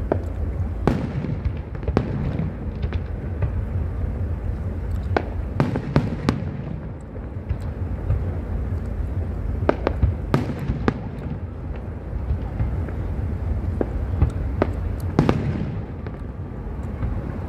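Aerial firework shells bursting, a string of sharp bangs at irregular intervals, some in quick clusters, over a steady low rumble.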